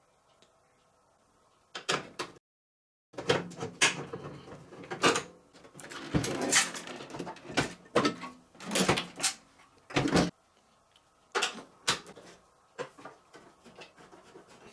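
Irregular metal clanks, knocks and scrapes of a microwave oven being taken apart by hand, parts and panels being handled and shifted.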